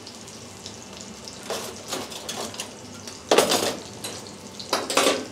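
Veal sweetbreads sizzling on a flat-top griddle (plancha), a steady frying hiss with two short, louder flares of hissing about three and a half and five seconds in.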